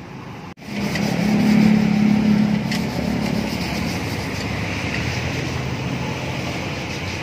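Motor vehicle engine noise from road traffic: it starts abruptly about half a second in, is loudest for the next couple of seconds as a vehicle goes by close, then settles into a steady traffic rumble.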